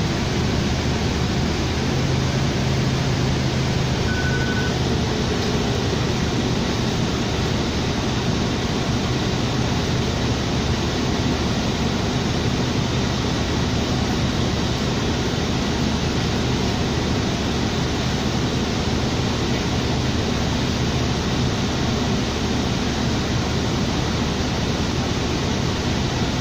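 Steady cabin noise inside a 2007 New Flyer D40LFR diesel bus: a low engine hum under a constant hiss. A single short beep sounds about four seconds in.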